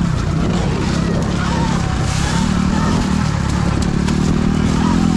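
Sur Ron electric dirt bike ridden along a trail, its motor whine rising and falling with the throttle over a steady low rumble of riding noise.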